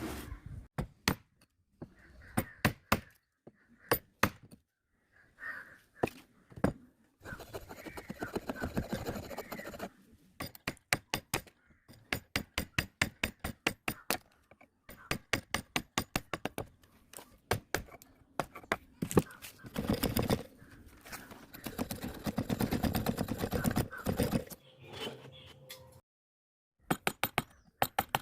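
Wood being cut away by hand for a 45-degree corner joint. There are many sharp knocks, and two longer stretches of steady rasping: one about eight seconds in, and one from about nineteen to twenty-four seconds in.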